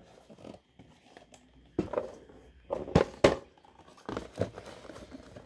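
Cardboard toy boxes being picked up and shifted by hand, giving a scatter of sharp knocks and taps, the loudest a pair about three seconds in.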